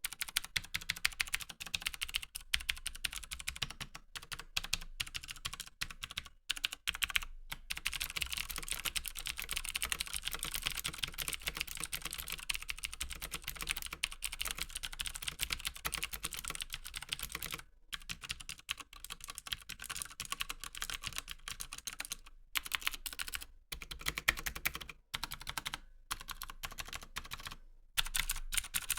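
Continuous fast typing on a CM Storm QuickFire XT mechanical keyboard with Cherry MX Blue clicky switches: rapid crisp clicks, each key giving a sharp click and a clack as it bottoms out, with a few brief pauses between bursts.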